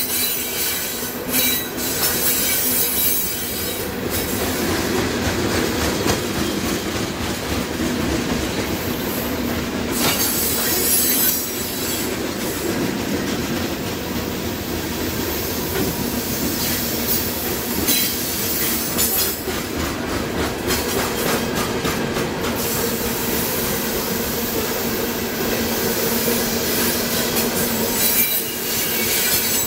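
CSX freight train of open-top gondola cars rolling steadily past: steel wheels running on the rails with a sustained squeal, flaring into brief louder screeches a few times.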